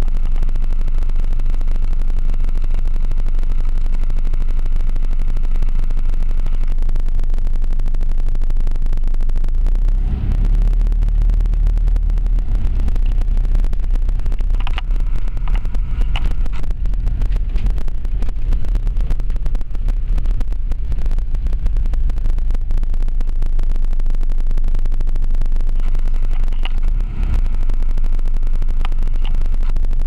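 A vehicle driving along a rough, muddy dirt track, heard from on board: a loud, steady low rumble of engine and tyres, with a few short knocks from bumps mid-way and near the end.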